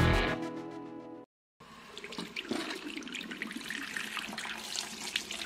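Music fades out, a short gap, then a tap runs into a stainless steel sink, the stream splashing over paintbrushes being rinsed under it.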